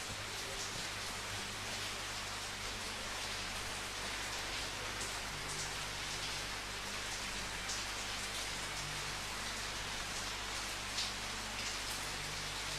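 Steady rain falling on a surface: a continuous hiss with scattered louder individual drops.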